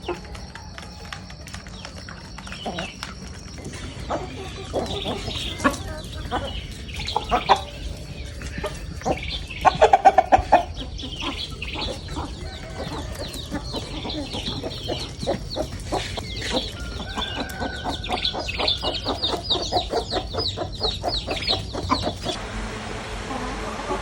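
Chickens clucking, with the loudest clucks about ten seconds in. A dense run of rapid clicks follows until near the end.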